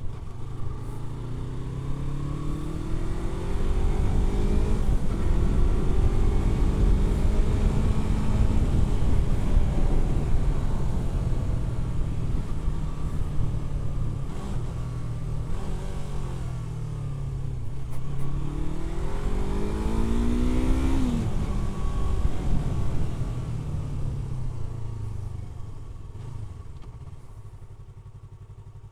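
Yamaha R3's parallel-twin engine pulling the bike along. The revs climb over the first few seconds, hold, then sag, then climb again to a peak about three quarters of the way through and drop off sharply. The engine note then falls and grows quieter near the end.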